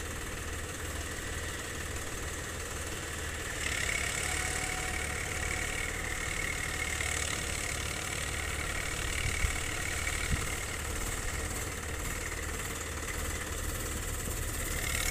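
Diesel tractor engine running steadily, a little louder from about four seconds in, with two short knocks near the middle.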